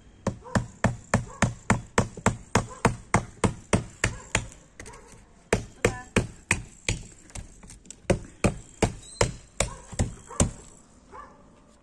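A hand tool striking hard ground, stone or concrete in quick, even blows, about four a second. The blows pause for about a second a little after four seconds in, then resume and stop near the end.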